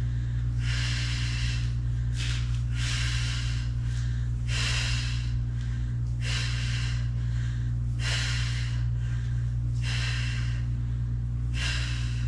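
A woman breathing hard and rhythmically through her mouth while doing glute bridge reps, with a sharp breath about every one and a half to two seconds. A steady low hum runs underneath.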